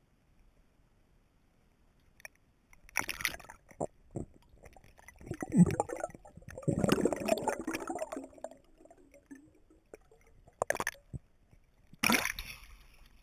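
Water heard through an underwater GoPro: nearly quiet at first, then irregular muffled bubbling and gurgling, with a rush of bubbles near the end.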